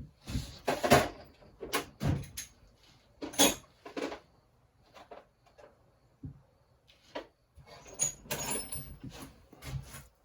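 Irregular clicks, knocks and short scrapes of parts and tools being handled while a Stihl 017 chainsaw is put back together, with a busier run of clatter near the end.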